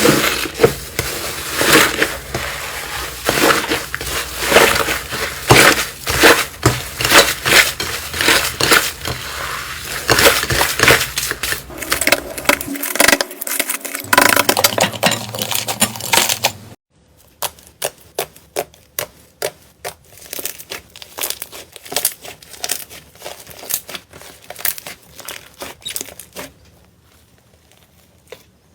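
Slime being squeezed and pressed by hand, making dense crackling and popping clicks. About halfway through it changes abruptly to sparser, quieter pops and squelches, which die away to faint near the end.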